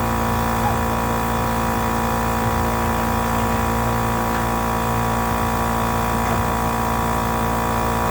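A machine running at a constant speed: a steady drone with several fixed tones and no revving.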